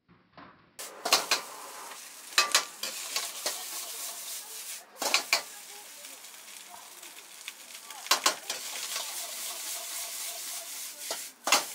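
Egg fried rice sizzling in a hot wok over a gas flame, while it is stirred and tossed with a long-handled metal ladle. The sizzling starts about a second in, and about five sharp metal clanks of the ladle and wok are the loudest sounds.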